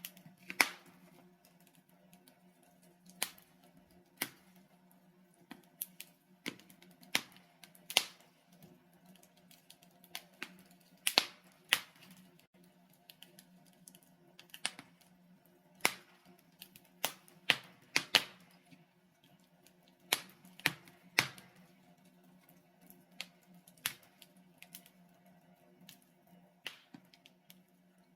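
Logs burning in a fireplace, crackling with irregular sharp pops, some coming in quick pairs and clusters, over a faint steady low hum.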